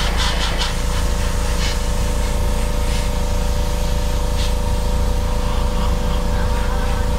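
Airbrush air compressor running with a steady low hum and motor whine, while the airbrush hisses in short spurts of spray as paint is laid on, several in the first second and a few more later.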